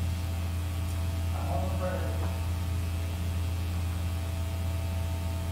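A low, steady hum runs throughout, with a short indistinct bit of speech about two seconds in.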